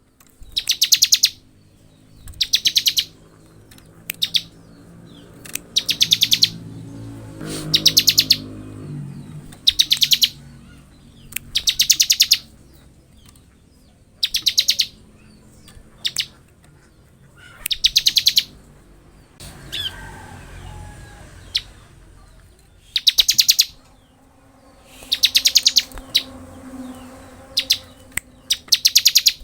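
Bar-winged prinia (ciblek) singing in 'ngebren' style: short bursts of very rapid, rattling high trills repeated every couple of seconds.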